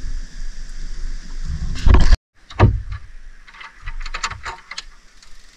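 Knocks and handling noise: a low rumble, a very loud bump just before two seconds in followed by a brief drop to silence, then a thump and a run of light clicks and knocks.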